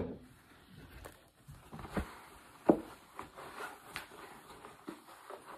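Towel rustling against plastic containers as a bedpan and measuring graduate are dried and handled, with a sharp knock right at the start and a few lighter knocks of the plastic being moved.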